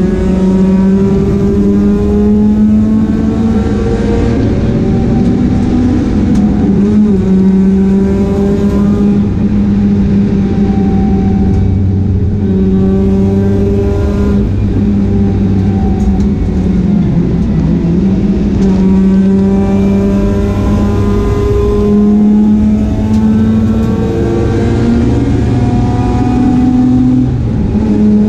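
Mazda RX-8 race car engine running hard on track through qualifying laps. Its pitch climbs under throttle and drops back at each gear change or braking, several times over.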